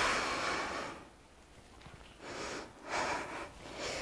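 A woman breathing hard during exercise: four noisy breaths, the first the longest, then three shorter ones from about two seconds in.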